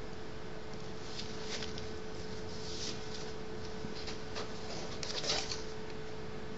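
Ink pen scratching on paper in a few short strokes, the loudest about five seconds in, over a steady hiss and a steady hum.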